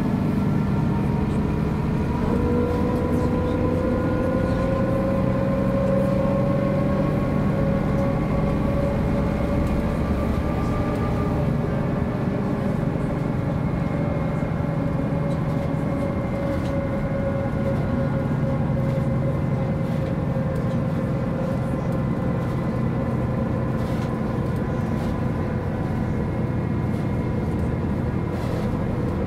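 Diesel engine and drivetrain of a MAN NG 262 articulated bus running under way. Its pitch climbs slowly over the first few seconds, then eases down gradually.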